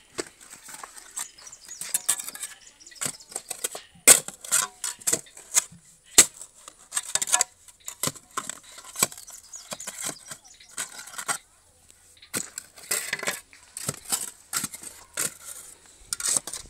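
Irregular sharp clinks and taps of a hand tool striking stone, several a second with short pauses between runs.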